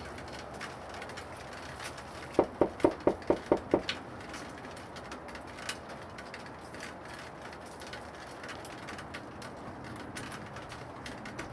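A quick run of seven knocks on a front door, about five a second, over a steady background hiss.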